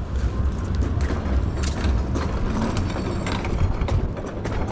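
Irregular light clicks and taps of walking a leashed dog over stone paving, over a steady low rumble of city traffic.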